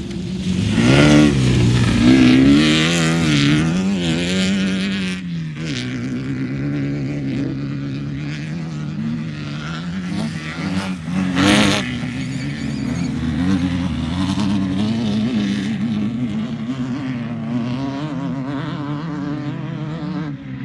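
Off-road race vehicle engine running, its pitch rising and falling with the throttle over the first few seconds. A brief loud rev comes about halfway through, and the engine then runs fairly steadily.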